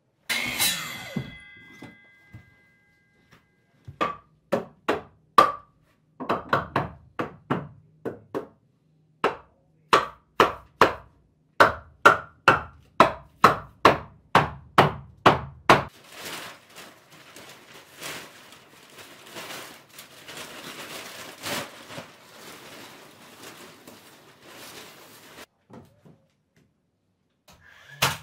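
A sharp clank with a brief ringing, then a run of sharp knocks on wood at about two a second for some twelve seconds, followed by a stretch of softer, steady noise.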